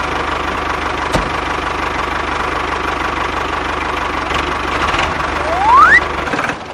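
Tractor engine running steadily with a low throb. Near the end a loud whistle rises sharply in pitch.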